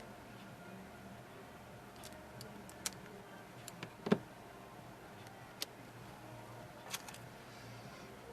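Scattered light clicks and taps of small tools and phone parts being handled on a repair bench, about six in all, the loudest a sharp knock about four seconds in.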